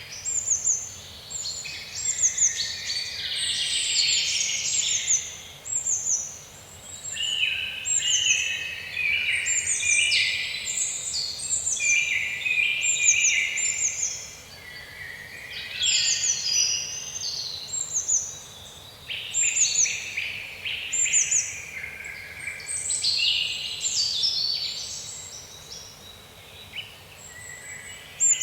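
Songbirds singing and chirping continuously, many calls overlapping, with runs of short, high, falling notes repeated over and over.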